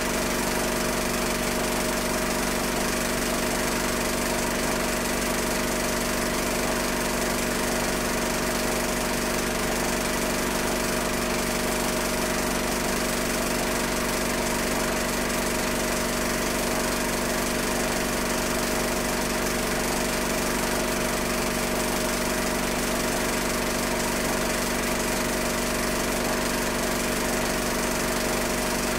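Steady, unchanging machine hum with hiss, holding a few fixed tones throughout.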